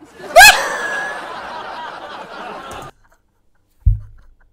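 Burst of laughter: a loud rising whoop about half a second in, trailing into laughter that stops abruptly about three seconds in. A short dull thump near the end.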